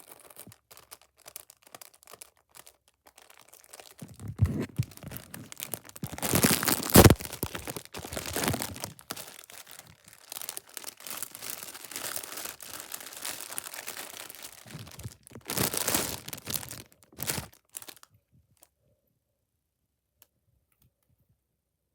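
Packaging being handled, crinkling and tearing as it is opened, in uneven rustles with louder stretches in the middle and again near the end. It stops about eighteen seconds in.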